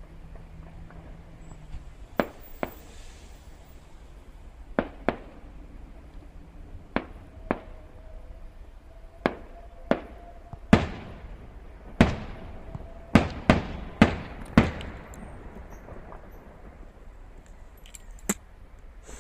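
Distant aerial firework shells bursting: sharp bangs, often in pairs, some trailing off in an echoing rumble. The bangs come faster and louder through the middle, with a quick run of four, and a single last one comes near the end.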